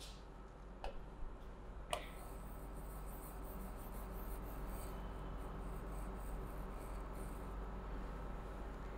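Faint strokes of handwriting on a board, with two light taps about one and two seconds in, over a steady low hum.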